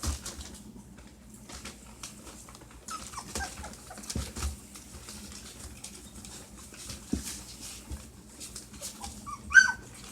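A litter of puppies about ten days old whimpering with faint squeaks, then one sharp, high squeal near the end. There are a few soft low knocks.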